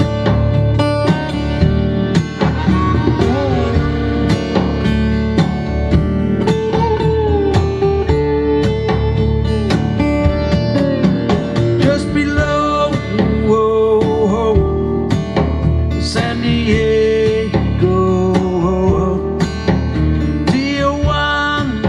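Recorded music with guitar and a singing voice, played through a Pioneer SX-780 stereo receiver for a sound test.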